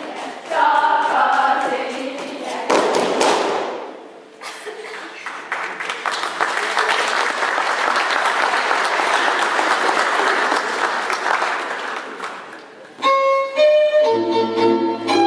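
Girls' voices singing a folk song together, ending about two and a half seconds in. Then a crowd applauding for several seconds. Near the end, fiddle music starts up.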